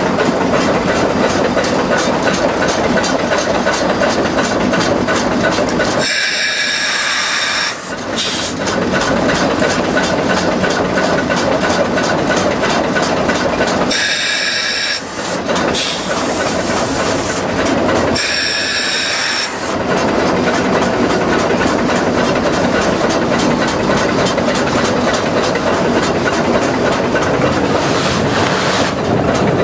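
Westside Lumber No. 12, an oil-fired Shay geared logging locomotive, running as heard from inside its cab: a loud, dense, steady chatter. Three spells of high steam hiss come in, each of about two seconds, around a quarter, a half and two-thirds of the way through.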